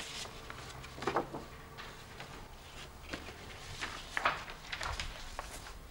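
Faint rustling and soft knocks of photographs and papers being handled, a few scattered short sounds over quiet room tone.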